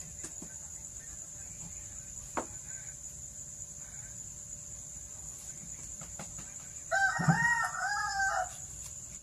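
A rooster crows once about seven seconds in, a call of about a second and a half in several arching notes. Under it runs a steady thin high-pitched tone, with a few light knocks earlier on.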